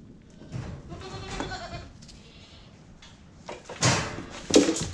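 Boer goats bleating, with a couple of loud knocks near the end.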